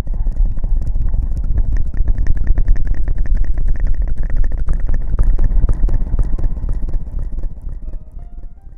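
Close-miked ASMR rustling and scrubbing right against the microphone: a loud, dense rumble full of fine crackles, dying away near the end.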